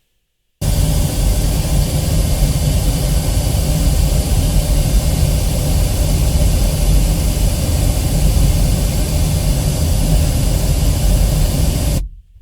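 Pink noise test track played through a 2014 Ford Flex's factory Sony stereo, with the treble turned all the way up and a little bass added. It starts abruptly about half a second in, holds steady and loud, heaviest in the bass, and cuts off just before the end.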